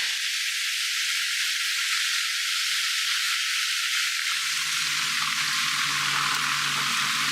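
Steady, dense hiss with no low end, like sizzling; about four seconds in, a faint low steady hum comes back in under it.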